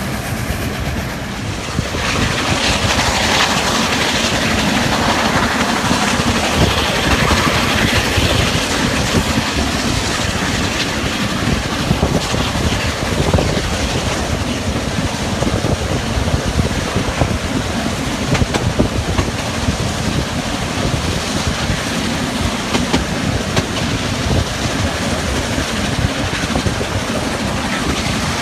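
Narrow-gauge steam train heard from a carriage window while under way: the steady rumble and clatter of the coaches' wheels over the rail joints, with the double-headed steam locomotives working up the grade ahead. It gets louder about two seconds in.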